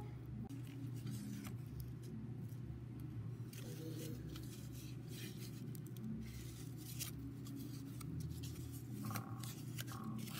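Scissors cutting through cardboard in a series of short, sharp snips and crunches, with paper and cardboard rustling as it is handled, over a steady low hum.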